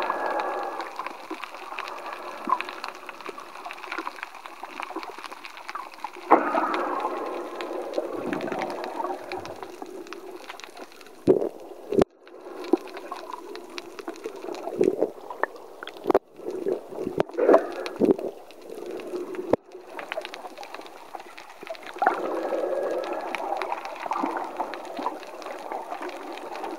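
Sea water heard underwater, muffled gurgling and sloshing as the swimmer moves through it. Several sharp knocks and a few sudden brief cut-outs come around the middle.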